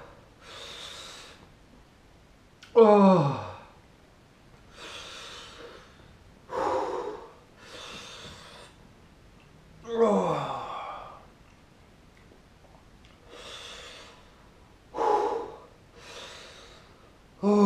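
A man breathing hard and groaning in pain from the burn of a superhot chilli. Loud groans that slide down in pitch come about every three to four seconds, with fainter breathy exhales between them.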